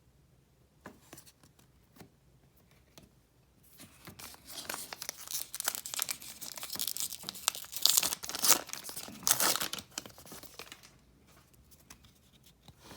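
A baseball card pack's wrapper being torn open and crinkled by hand. The crackling starts about four seconds in, is loudest near the middle and dies away near the end, with a few light clicks before it.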